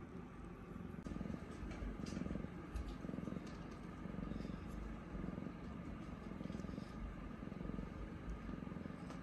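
Mother cat purring steadily while resting between births, her newborn kittens nursing; the low purr rises and falls roughly once a second.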